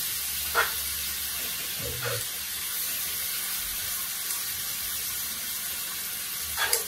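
Beef chunks and mushrooms sizzling steadily as they sear in a hot frying pan on high heat, browning the meat. A couple of short knocks about half a second in and near the end.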